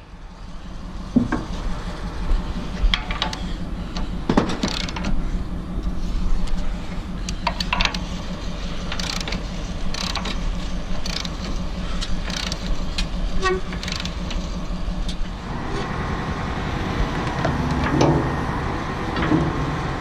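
A Cat 225DLC excavator's diesel engine runs with its hydraulics working, with scattered metal clanks and clicks from the stick and bucket linkage as a bucket is picked up off a trailer. The engine gets louder about three-quarters of the way through as the bucket comes off the deck.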